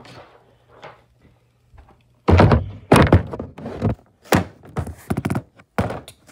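Handling noise: a run of dull thumps and scrapes close to the microphone, beginning about two seconds in, as the phone and plush toy are moved about.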